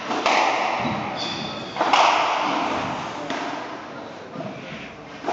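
Squash rally: the ball struck hard by the rackets and hitting the court walls, two loud thuds about a second and a half apart, each ringing on in the hall, then a softer hit near the end. A short high squeak of shoes on the wooden floor comes about a second in.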